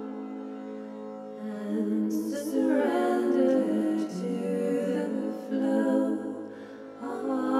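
A woman singing a slow wordless melody over a steady low drone. Her voice comes in about a second and a half in and pauses briefly near the end.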